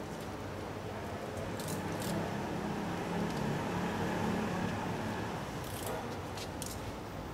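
Steady outdoor street noise that swells for a few seconds in the middle, like a vehicle going by. A few brief scratchy rustles of a large paper sheet being handled against a metal roller shutter are heard over it.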